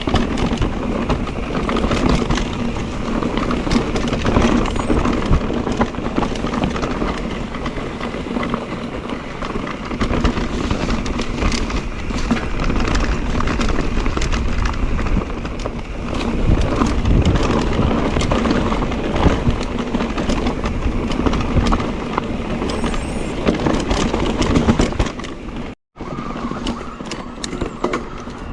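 Electric mountain bike (Mondraker Crafty) ridden fast down a rough trail: tyres rattling and crunching over stones, with chain and frame clatter over a steady hum. The sound drops out for an instant near the end.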